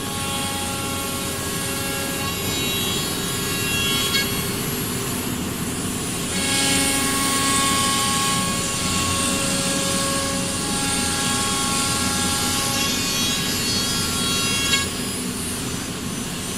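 CNC router machining: a steady spindle whine with several tones over a hiss of cutting noise. The cutting noise grows louder from about six and a half seconds in until near the end, with a brief knock just before it drops back.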